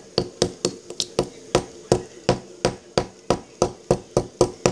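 A pointed digging tool stabbing repeatedly into the hard clay-like 'stone' block of a dig-out kit, chipping it open: sharp, steady taps about three to four a second.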